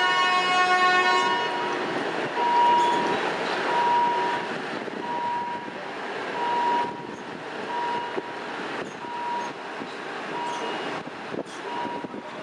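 Train horn sounding for about a second at the start, then the rumble of a train moving along the tracks, with a short steady beep repeating about every 0.7 s.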